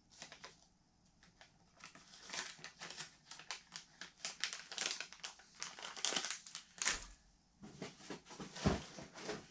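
Plastic bags of soft-plastic fishing baits crinkling and rustling as they are handled. There is a short pause about seven seconds in.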